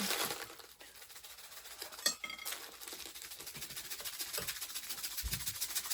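Light rustling and small clinks of dry food being handled in a bag and bowl, with a sharp click about two seconds in and a dull thump near the end.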